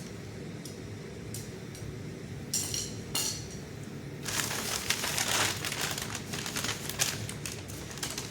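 Steel blacksmithing fire tongs clinking against each other as they are handled and unpacked: a few sharp, ringing clinks in the first three seconds, then a busier stretch of clattering and rustling from about four seconds in.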